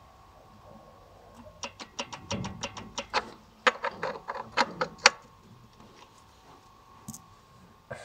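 Metallic clicking and ringing, an irregular run of sharp knocks for about three and a half seconds, over a faint steady hum. This is the knock of an Opel Zafira 2.2 diesel at idle, coming from the clutch: the gearbox input shaft is rattling in the spring-loaded hub of the clutch driven disc.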